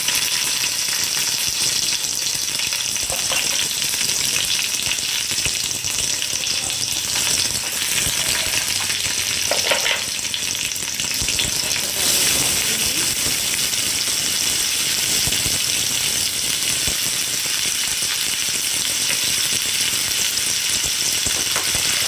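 Cumin seeds, chopped garlic and green chillies sizzling in hot oil in a frying pan, a steady frying hiss. About halfway through, chopped red onion is in the oil too and the sizzle is a little louder.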